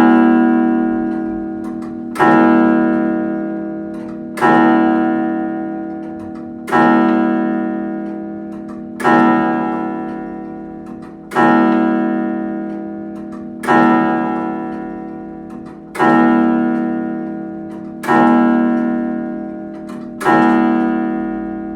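Clock bell striking, ten slow, even strokes of the same note, each ringing out and fading before the next.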